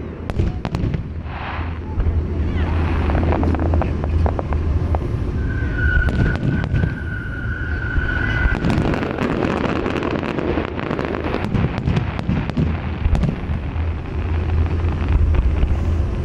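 Aerial fireworks display: a rapid run of bangs and crackles from bursting shells over a low rumble. A steady whistle rises out of it about five seconds in and holds for about three seconds.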